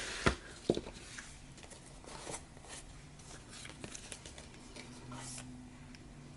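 Paper and craft tools handled on a tabletop while glue is being spread: a couple of sharp taps in the first second, then faint rustling and light scraping.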